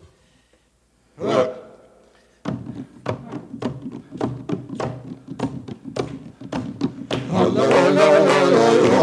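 A short loud cry about a second in, then a hand drum beats out a rhythm of sharp strokes, two to three a second. Near the end voices singing come in over the drum.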